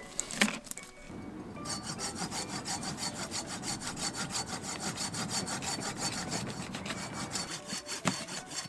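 A hand saw cutting wood in quick, even back-and-forth strokes, starting about a second and a half in and going on steadily; the caption calls the saw noise loud. A sharp knock comes about half a second in, and a smaller one near the end.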